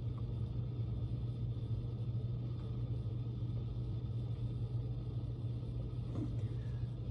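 Steady low mechanical hum with an even rumble under it, unchanging throughout.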